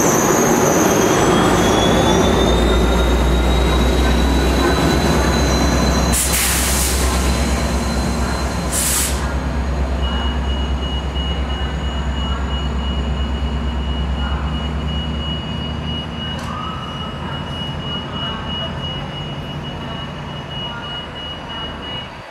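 Sounder commuter train and its EMD F59PHI diesel locomotive rolling past slowly into the station: a heavy rumble with a slightly rising wheel squeal, then two short hisses of air. After that the locomotive's diesel runs at a steady low drone while a high beeping tone pulses from about ten seconds in. The whole fades gradually.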